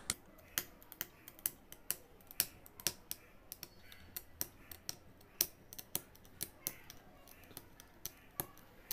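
An aari hook needle punching in and out of fabric stretched taut on an embroidery frame, making faint, sharp clicks about two a second, unevenly spaced, as a zari outline is chain-stitched.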